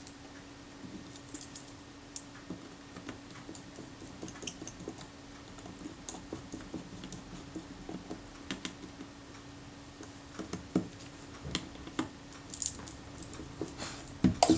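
Small irregular metallic clicks and taps of hand tools and parts on a Kodak Retina IIIC camera as its film advance lever is refitted, with a few louder knocks near the end. A faint steady hum runs underneath.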